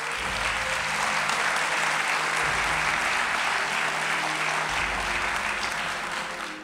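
Audience applauding steadily in a hall, ending abruptly.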